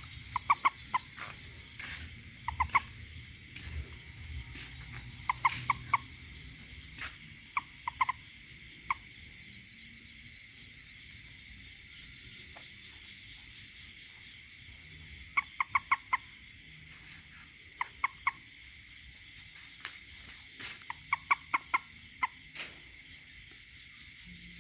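A toad calling in short, quick croaks, bunched two to four at a time and repeated every couple of seconds, with a pause of about six seconds midway. A few sharp clicks sound among the calls.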